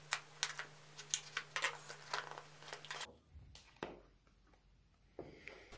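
Hands working a cardboard smartphone box: a quick string of small clicks and scratchy rustles as its seal is pulled, then only a few scattered clicks from about three seconds in.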